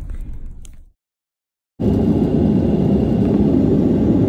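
Low rumble of a car interior that cuts off about a second in, then, after a brief silence, the loud steady roar of an airliner's cabin in flight, engine and airflow noise with no change in pitch.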